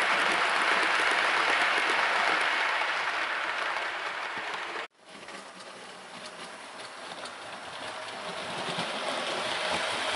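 Hornby W1 model locomotive and its Pullman coaches running on model railway track: a steady rushing clatter of wheels on rail. It fades as the coaches pass, cuts off abruptly about five seconds in, then builds again as the train approaches.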